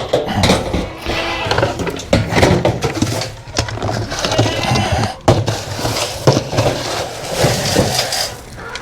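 Knocking, clattering and rustling as grain is scooped from the feed bin and handled, with a few short squeaks mixed in.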